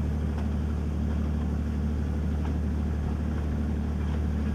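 Heavy construction machinery engine running steadily: a constant low drone that holds an even speed throughout.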